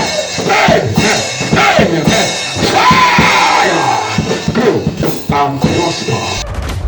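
Drum kit playing with loud, unclear voices over it, cut off abruptly near the end, leaving only a low hum.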